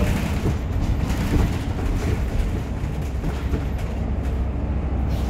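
Passenger-cabin noise of a city bus on the move: a steady low engine and road rumble, with scattered light rattles and clicks from the cabin.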